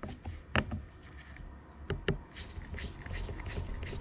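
Flat-blade screwdriver clicking against and turning small screws into the body of an outboard fuel lift pump: a few sharp clicks in the first two seconds, then a run of small rapid ticks.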